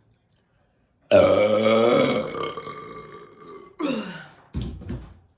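A person's long, loud burp brought up by fizzy flavored Coke, starting about a second in and sinking in pitch over more than two seconds, followed by two shorter burps near the end.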